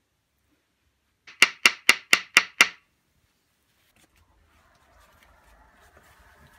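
Six sharp, evenly spaced clacks, about four a second, of hard massage stones knocked together. A faint steady hum follows from about four seconds in.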